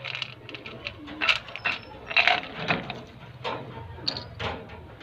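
Pigeons cooing in a loft, with a run of sharp clicks and knocks from a hand working inside the wire cage, about one a second.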